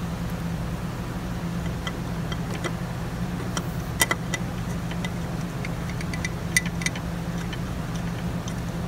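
Scattered light metallic clicks and taps of a socket extension and bolt being worked by hand into an aluminium oil filter housing while the bolt is started, with a few sharper clicks midway. A steady low hum runs underneath.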